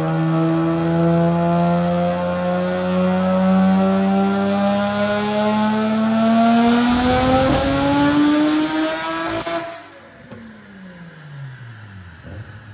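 Nissan R32 GT-R's built, turbocharged RB26 straight-six making a dyno pull, its note climbing steadily in pitch under load for about nine and a half seconds. Then the throttle closes, the sound drops off sharply, and the pitch falls away as the engine winds down.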